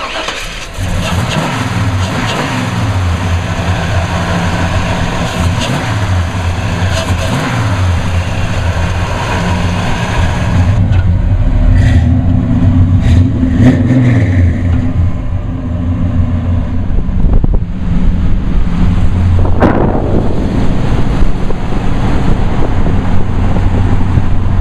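Fuel-injected 7.4-litre (454) Vortec V8 of a 1970 Chevelle running through headers: steady idle with several throttle blips that rise and fall in pitch, then the car pulls away near the end.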